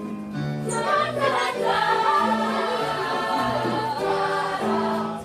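A group of young voices singing a show tune together over recorded accompaniment, with a steady line of low bass notes beneath.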